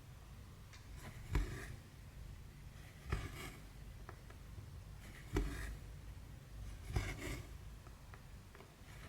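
Hand cross-stitching on 14-count canvas: four times, a needle pokes through the fabric with a sharp tick and the thread is drawn through with a short rustle, about two seconds apart.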